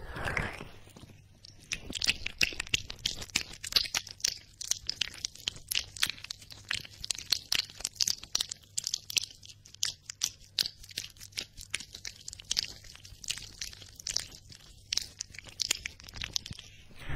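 Fingertips rubbing and fluttering right beside the ears of a binaural microphone: a rapid, uneven stream of crisp crackling clicks that starts about a second and a half in.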